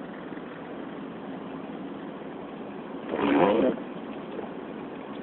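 Ford Mustang with a manual gearbox driving on a snowy road, its engine and road noise steady inside the cabin. About three seconds in there is a short, louder sound lasting about half a second.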